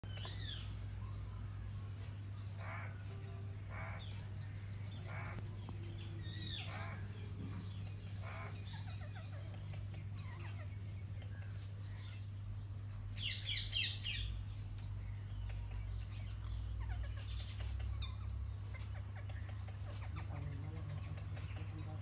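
Rose-ringed parakeets calling: short shrill screeches every second or so, with a quick burst of rapid calls just past halfway. A steady low hum runs underneath.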